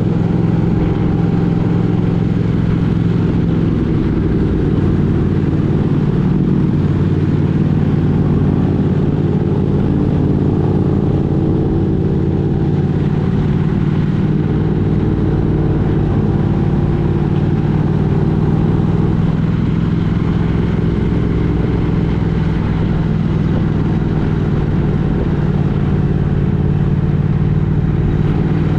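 Motor vehicle engine running at a steady speed with road noise, as on a continuous drive.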